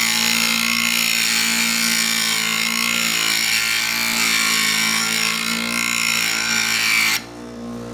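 Steel chisel ground on the fine stone of a small Vevor bench grinder: a steady harsh grinding hiss over the motor's hum. The grinding stops abruptly about seven seconds in, and the motor keeps running.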